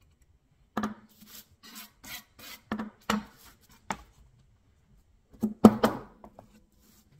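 A metal putty knife scraping and pressing loose sawdust along a painted board in about eight short rasping strokes. About five and a half seconds in come a few sharp knocks, the loudest sounds here, as the board is handled and tapped to shake off the loose sawdust.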